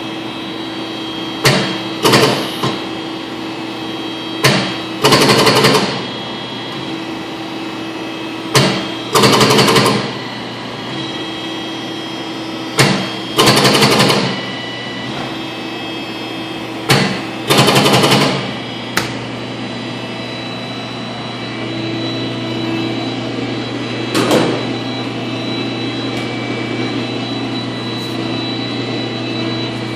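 A machine running with a steady hum and faint steady tones. It is broken by loud bursts of rushing noise, each usually led by a sharp click, about every four seconds for the first twenty seconds, then once more a few seconds later. This is the odd noise the equipment is making.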